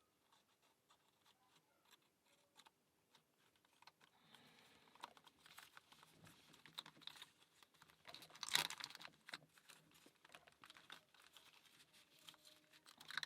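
Faint, scattered clicks and taps of the wooden parts of a UGears combination-lock puzzle being handled, with one louder clatter about eight and a half seconds in.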